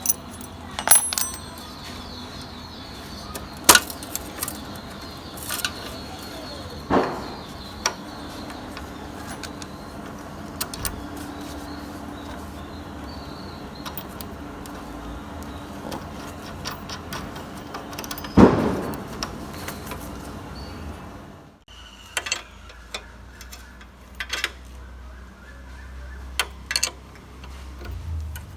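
Metal clinks and knocks of spanners and bolts on a motorcycle's rear wheel assembly, scattered and irregular, with a few louder knocks.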